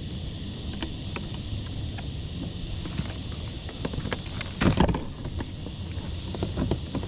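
Clicks and knocks of a collapsible hoop crab net's metal rings and frame being handled and lifted against a kayak, with a louder cluster of knocks about halfway through, over a steady low background rumble.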